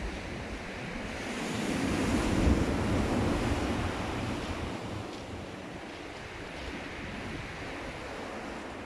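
Surf breaking on the beach with strong wind buffeting the microphone; a wave surges louder about two to three seconds in, then eases off.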